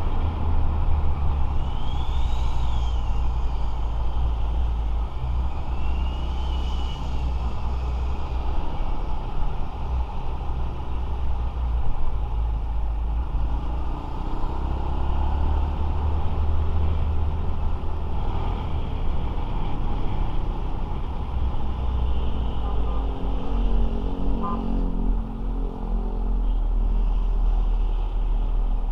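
Motorcycle ride in traffic heard through an action camera: steady road and engine noise under heavy, uneven wind rumble on the microphone. Two short whistles rise and fall in pitch a few seconds apart, and about twenty seconds in a nearby engine's note comes up clearly for a few seconds.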